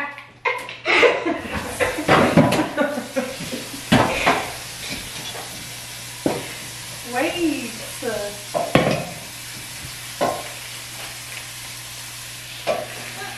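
Kitchen sink tap running with a steady hiss while a cup is filled, with scattered knocks of dishes against the counter and sink. Brief voices and laughter near the start and again about halfway through.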